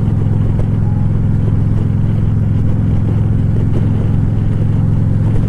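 Harley-Davidson V-twin touring motorcycle engine running steadily with an even, loud exhaust pulse, heard from the rider's seat.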